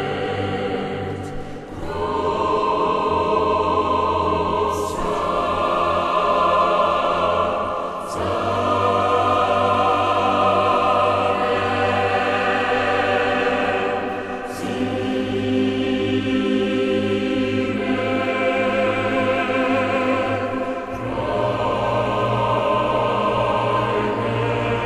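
Choral music: a choir sings long held chords over a steady low note, the chord changing every few seconds.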